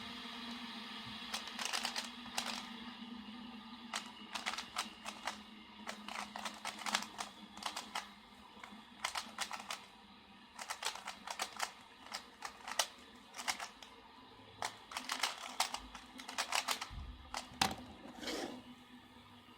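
Plastic speed cubes being turned fast: irregular runs of sharp clacking clicks as the layers snap round. Under them, a fidget spinner's faint steady whir that fades as it slows.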